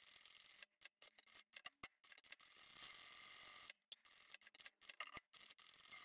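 Sewing machine stitching a seam, heard only faintly as scattered light clicks over near silence.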